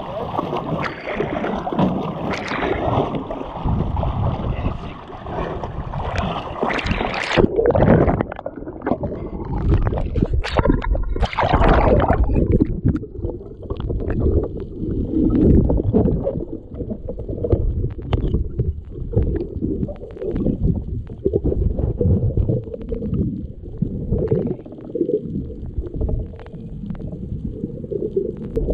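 Water sloshing and splashing around the camera at the surface, with louder splashes about seven and eleven seconds in. From about twelve seconds in the camera is underwater, and the sound turns to a muffled, low rumble with all the brightness gone.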